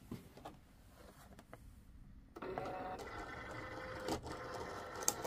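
Cricut Explore Air 2 cutting machine running: a few light clicks, then about halfway through the motors start a steady mechanical whine as the tool carriage and mat move, with a couple of sharp clicks near the end.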